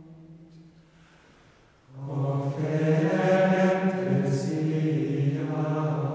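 Background music of low voices chanting in long held notes. One phrase fades away, and a new, louder phrase begins about two seconds in.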